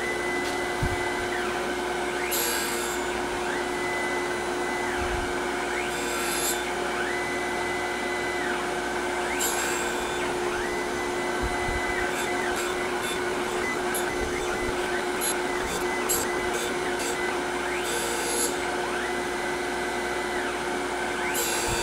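Tormach Personal Surface Grinder running: a steady hum from the spinning wheel, with a higher whine that comes and goes every few seconds as the automatic table traverses back and forth. Short hissing bursts come as the wheel skims mill scale off the top of a steel bracket.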